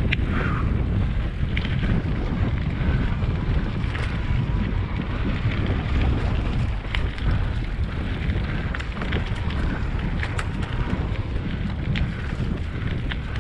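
Wind buffeting the microphone: a steady, loud low rumble, with a few faint clicks.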